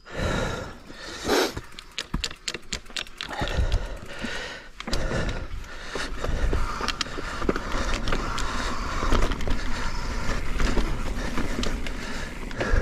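Mondraker Foxy RR enduro mountain bike riding down a dirt singletrack: tyres rolling on dirt with many rapid clicks and rattles from the bike, over a rumble of wind on the microphone. It gets louder and busier about five seconds in.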